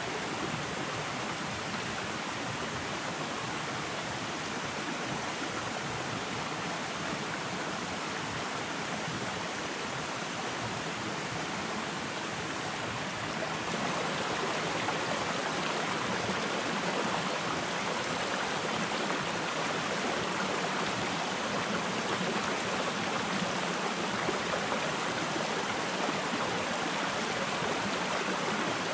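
Small forest stream running over rocks: a steady rush of water, a little louder about halfway through.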